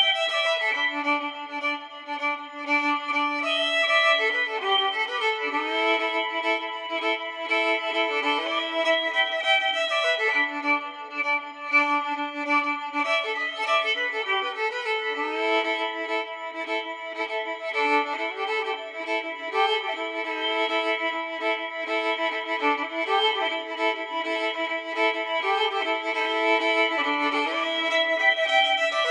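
Violin music: bowed notes held for a second or two at a time, moving from one pitch to the next, with no percussion.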